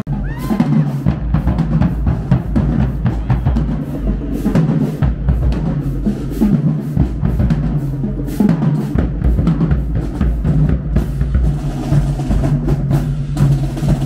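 High school marching band drumline playing a street cadence: rapid snare-drum rolls over steady bass-drum beats.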